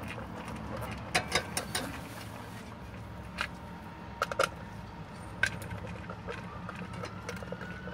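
Scattered sharp clicks and light knocks of a screwdriver working the screws of an HEI distributor cap and its coil, over a steady low hum.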